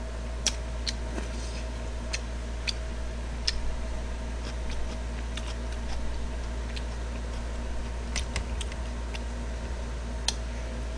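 Eating sounds close to a microphone: a man chewing jjamppong noodles, with scattered short, sharp smacks and clicks at irregular intervals, over a steady low electrical hum.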